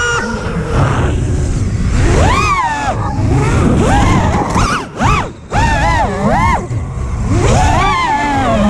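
FPV quadcopter's motors whining, the pitch sweeping up and down again and again as the throttle is worked, with a brief cut-out about five seconds in before they spool back up.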